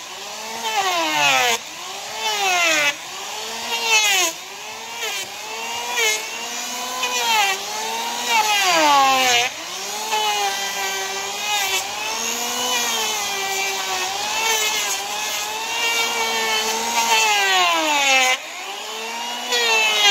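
Electric hand wood planer cutting an overgrown draft horse's hoof wall. Its motor whine sags and recovers in pitch with each pass, about once a second, holding steadier for a few seconds midway.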